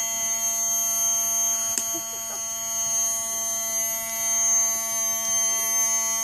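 Small 12-volt DC water pump motor running a model waterfall with a steady electric buzz. It is loud because the motor has no housing of its own. A single click comes about two seconds in.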